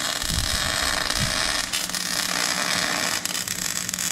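Electric arc welding on a steel trailer axle: the arc runs unbroken with a steady crackling hiss.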